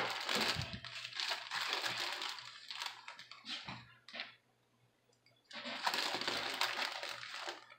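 Plastic bag of shredded lettuce crinkling and rustling as it is handled and the lettuce is pulled out, in two spells with a short pause between.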